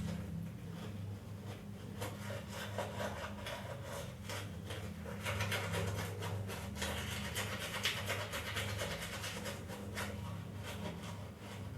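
Toothbrush scrubbing teeth in quick, repeated back-and-forth strokes, over a steady low hum.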